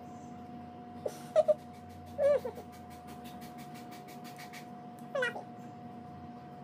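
A cat meowing: two short high mews about a second and a half in, a longer wavering meow at about two seconds, and another falling meow near the end.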